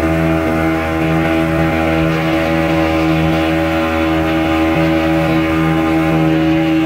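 Speedboat engine running steadily at speed, a constant droning tone over the rush of water and spray from the wake.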